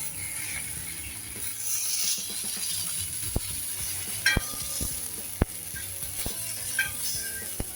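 Fish sizzling in oil on a dosa griddle, with a string of sharp clicks and scrapes of a spatula against the griddle as the pieces are turned over.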